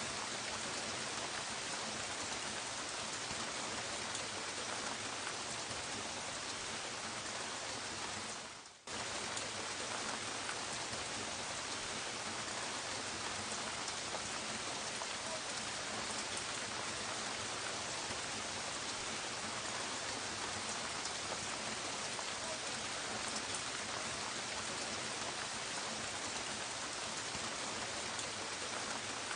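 Steady, gentle rain falling, an even hiss of many drops. About eight seconds in it fades briefly almost to nothing, then cuts straight back in.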